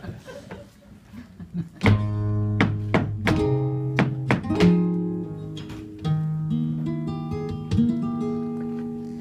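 Flamenco guitar playing alegrías: a few faint taps, then about two seconds in a loud chord. Plucked notes and chords follow and ring on, with sharp percussive strikes between them.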